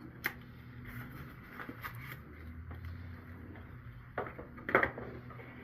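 Hands working on plastic printer parts: a sharp click about a quarter second in, light clicks and handling noise, then a louder burst of knocks and clatter near the end as a cover is pried open.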